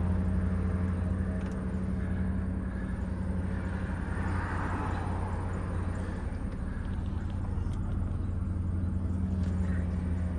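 1998 Lincoln Mark VIII's 4.6-litre DOHC V8 idling steadily just after a cold start. It shows no timing chain slap or knocking, which the owner puts down to always running Mobil 1 oil.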